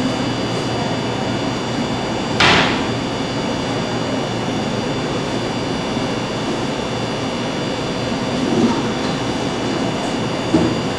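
Steady machine hum and hiss of a kitchen's equipment, with one sharp clink about two and a half seconds in and a smaller knock near the end, as a pastry brush works between a glass bowl of coffee and a sponge cake.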